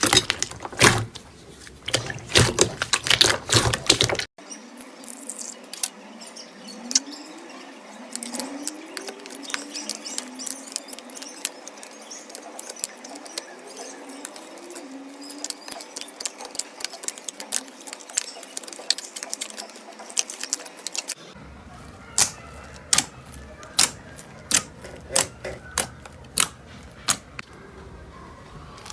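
Slime being squished and poked by hand, making sticky clicks and pops. The sound cuts abruptly twice: dense loud clicking at first, then a quieter stretch of fine crackling, then sharp pops about once a second near the end.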